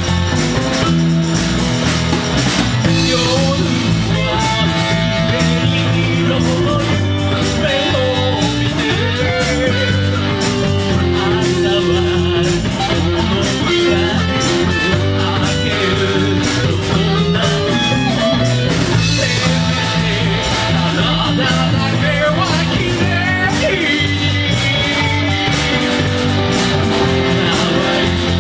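Rock band playing a song: guitar over bass and drums, with a singer, loud and continuous.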